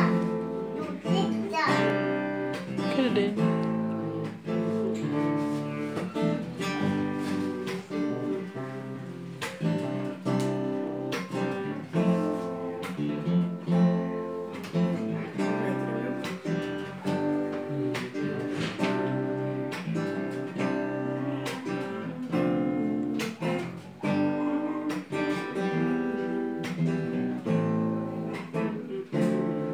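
Two acoustic guitars playing together, strumming and picking the chords of a slow hymn tune as an instrumental introduction, with no singing yet.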